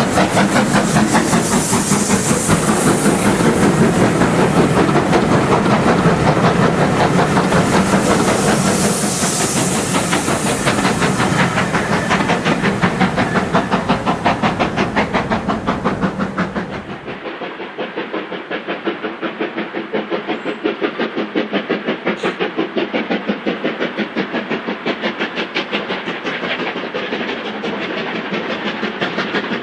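LMS Black Five 4-6-0 steam locomotive working a train, its two-cylinder exhaust beating fast and steady. A little over halfway through the sound drops and turns thinner, with less of its deepest and highest parts.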